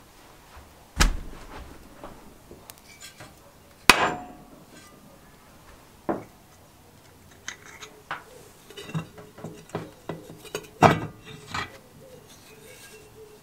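Soft copper hammer striking the end of a Briggs & Stratton engine's crankshaft to break the flywheel loose from its taper: two sharp blows about three seconds apart, then a third. A run of lighter metallic clinks and knocks follows as the loosened flywheel is worked off the shaft.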